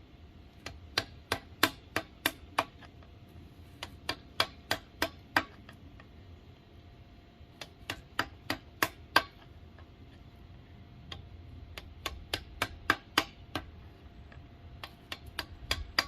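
Sharp hand-tool taps, like light hammer blows, in runs of five to seven at about three a second, with short pauses between runs.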